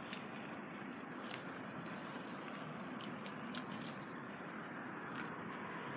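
Steady background noise with scattered faint clicks and ticks.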